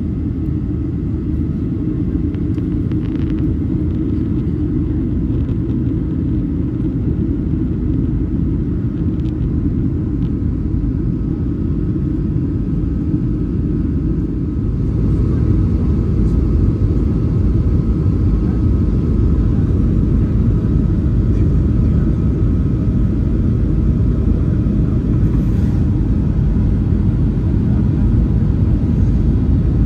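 Cabin noise inside a Boeing 737-900 airliner on its approach descent: a steady low rumble of airflow and jet engines, with a faint steady whine. It grows louder about halfway through.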